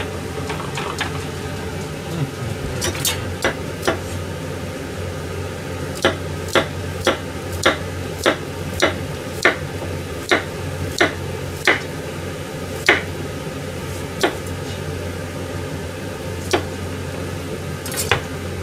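A steady low kitchen hum with a run of sharp knocks. The knocks come regularly, a little under two a second, for several seconds in the middle, then spread out to a few single ones.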